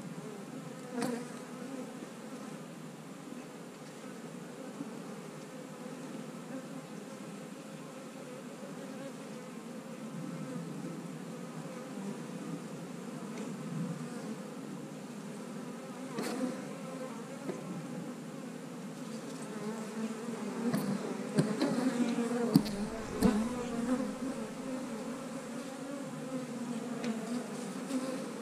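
Honey bees buzzing around an opened hive in a steady hum that grows louder in the second half. A few sharp clicks and, about three quarters of the way through, a cluster of knocks come from the hive tool and the wooden frame as the frame is worked loose and lifted out.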